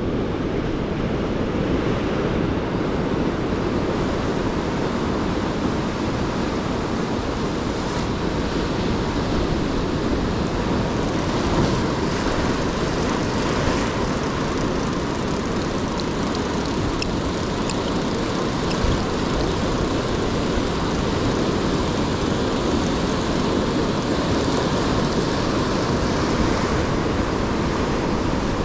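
Rough surf breaking and washing over rocks in a steady rushing.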